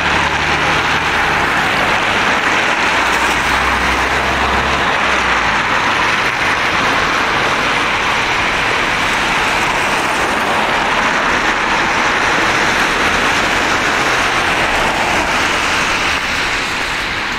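Road traffic on a wet street: a steady hiss of tyres on wet tarmac, with a car's engine humming low as a police car drives past close by during the first five seconds or so.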